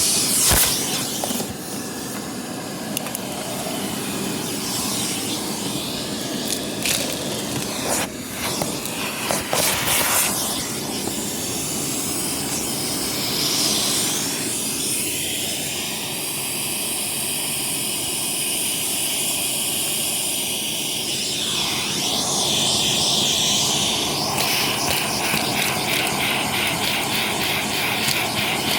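Vacuum cleaner running steadily over car carpet, with a few sharp clicks of grit and debris being sucked up the hose in the first ten seconds. The tone of the rushing air changes several times later on.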